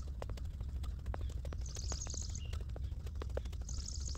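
Sneakers slapping on concrete while jogging in place with high knees: a quick, even patter of footfalls. Birds chirp a couple of times in the background.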